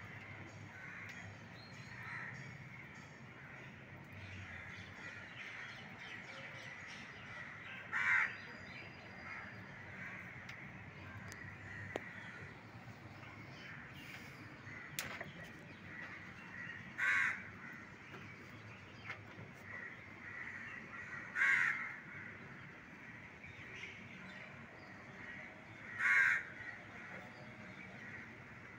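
A bird calling outdoors: four single loud, harsh calls spaced several seconds apart, over a faint steady background hum.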